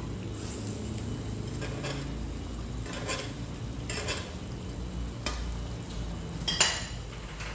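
A metal utensil scraping and clinking in a cast-iron skillet of cream sauce, several strokes spread out, with a sharper clank near the end. The sauce simmers softly underneath.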